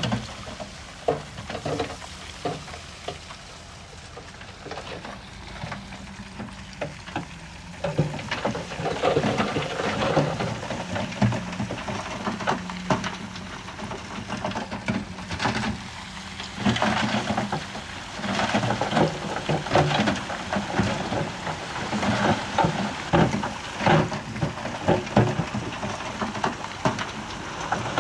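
Bulldozer pushing stone: a steady diesel engine hum under dense clatter and crunching of rocks, the clatter heavier from about a third of the way in and again past the middle.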